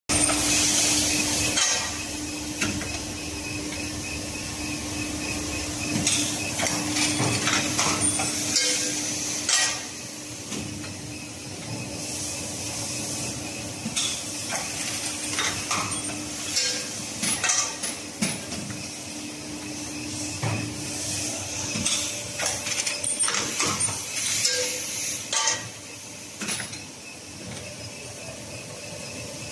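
Automatic induction heating machine feeding steel ejector pins: a steady low hum under irregular metallic clinks and clatters as the pins move through the feeder.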